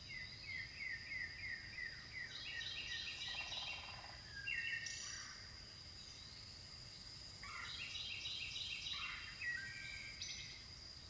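Wild birds singing in bouts of quick repeated chirping notes, with a pause midway and another bout near the end. A steady high insect buzz continues underneath.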